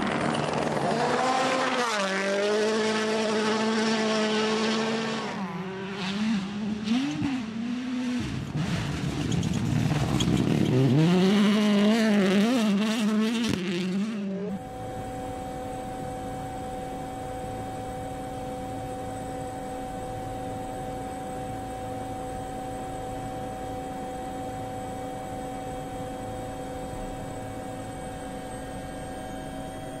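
A WRC Rally1 car's 1.6-litre turbocharged four-cylinder engine is driven hard on a gravel stage. Its pitch climbs and drops with gear changes and throttle lifts, with scattered clicks and knocks. About halfway through, the engine sound cuts off suddenly and is replaced by a steady, even hum.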